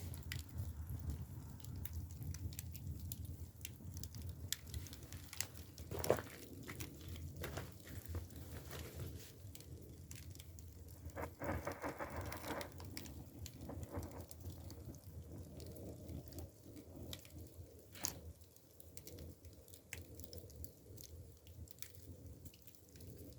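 Dry split bamboo firewood burning in a traditional agungi firebox, crackling with scattered sharp pops over a low steady rumble. The loudest pops come about six seconds in and again near eighteen seconds, with a dense burst of crackling around eleven to twelve seconds.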